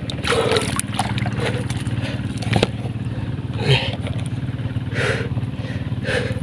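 A small engine running steadily with an even low throb. Short scrapes and rustles come and go on top as the eel is handled on dry soil.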